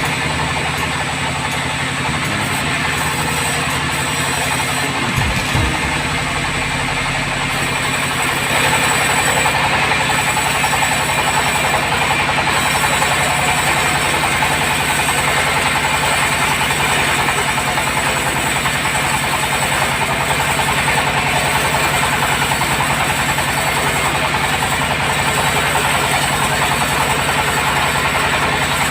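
Sawmill bandsaw running steadily: a low machine hum under a dense hiss, getting a little louder about eight seconds in.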